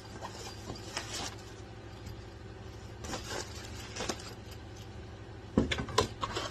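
Vacuum kit parts and packaging being handled: scattered light clicks, rustles and knocks of plastic pieces, with a louder clatter about five and a half seconds in.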